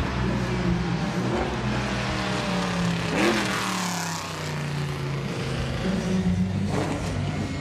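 V8 stock car driving close past, its engine running steadily at low revs; as it goes by, about three seconds in, the engine note peaks and then drops in pitch as the car pulls away.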